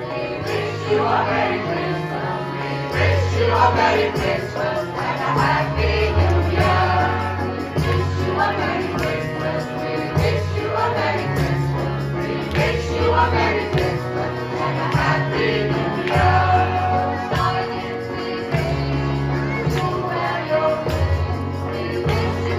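A choir singing a Christmas song through a PA system, with amplified instrumental backing and a bass line that moves from note to note about once a second.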